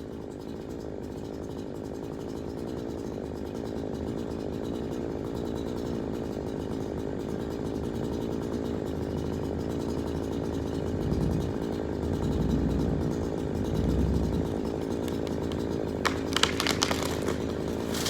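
Chainsaw running steadily under load and slowly getting louder, with wind gusts rumbling on the microphone partway through and a few sharp cracks near the end.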